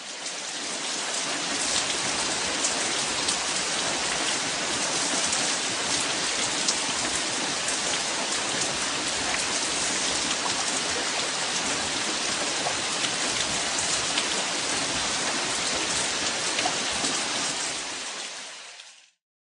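Steady rain falling, a dense even hiss of drops with fine pattering ticks. It fades in at the start and fades out near the end.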